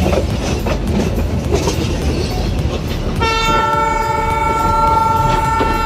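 Meter-gauge passenger train running, its wheels rumbling steadily on the track. About three seconds in, the locomotive's horn starts a long, steady blast of several tones together and holds it.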